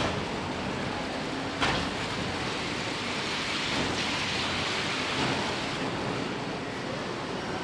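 Steady noise of a car assembly hall, a hiss with no clear tones. A single sharp knock comes about one and a half seconds in, and the hiss swells for a couple of seconds midway.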